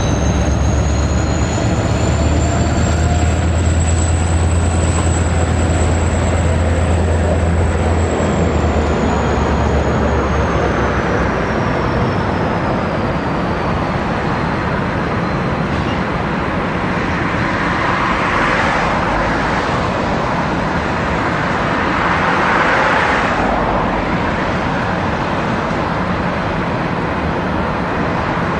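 V/Line A class diesel-electric locomotive approaching at low speed. A steady low engine drone and a high whine that rises and then falls away fill the first half. Louder swells of wheel and rail noise follow as it crosses the pointwork.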